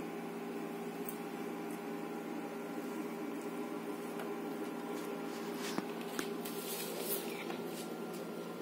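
Steady hum in a small room, with a few light clinks and taps of metal plates and bowls being handled during a meal eaten by hand, mostly in the second half.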